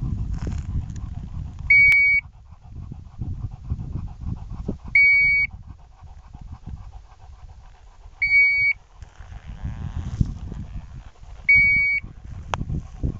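Hunting dog's beeper collar giving four short, high beeps, one about every three seconds, to mark where the setter is. Beneath them, a low rumble of wind on the microphone and a few sharp clicks.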